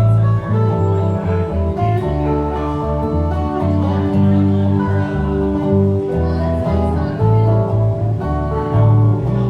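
Band playing an instrumental passage with no singing: guitar chords and melody over a steady bass line.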